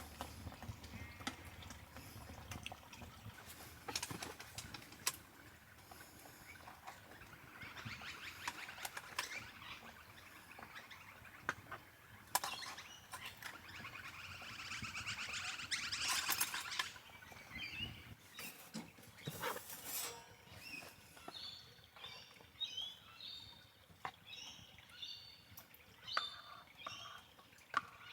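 Scattered clicks and knocks of handled camp gear, with a hiss that builds and fades around the middle, then birds chirping in short repeated calls through the second half.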